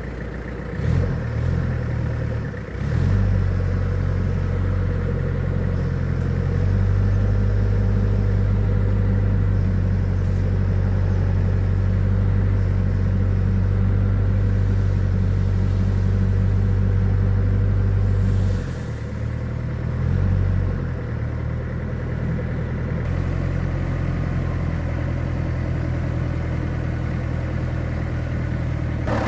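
An old truck's engine runs steadily with a low drone. It picks up a few seconds in, runs louder until about two-thirds of the way through, then eases off, surges briefly and settles back to a steady run.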